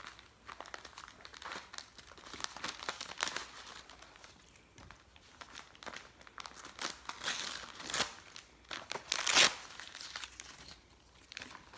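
Wrapping paper crinkling and tearing as a gift is unwrapped by hand, in irregular crackles with the loudest rip about nine seconds in.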